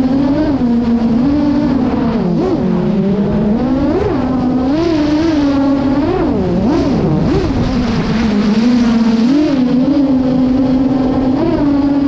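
An 8-inch FPV freestyle quadcopter's Hyperlite 2807.5 motors spinning two-blade 8x4.5 props, heard through the onboard GoPro as a loud, steady buzzing hum. The pitch jumps up and dips many times as the throttle is punched and backed off.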